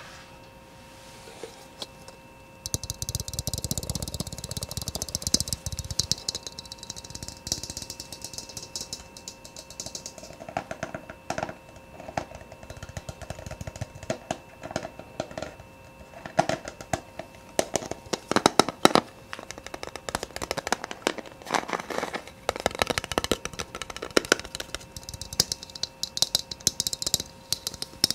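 Fast ASMR tapping close to the microphone, a rapid, irregular patter of taps. The first part is a dense, hissy flurry; from about ten seconds in, the taps come as sharper, separate clicks.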